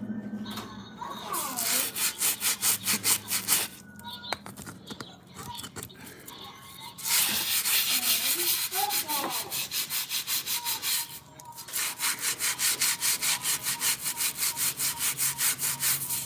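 Hard back-and-forth scrubbing by hand on a floor, about four to five strokes a second, in three spells with short pauses about four and eleven seconds in.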